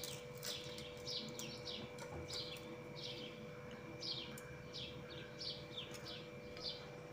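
A small bird chirping over and over, short high notes that fall in pitch, about twice a second, over a faint steady hum.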